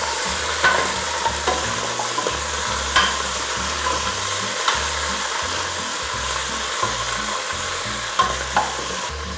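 Cow foot pieces sizzling as they brown in hot oil in a stainless pressure cooker, stirred with a spoon that clicks against the pot now and then.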